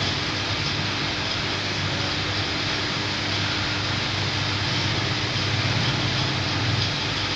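Steady hum and hiss of an induction annealing machine heating the bend of a carbon-steel U-bend pipe, with a low steady drone under it.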